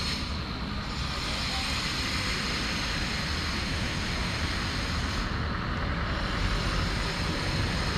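Steady outdoor street noise: an even rushing sound with a low, unsteady rumble and no distinct events.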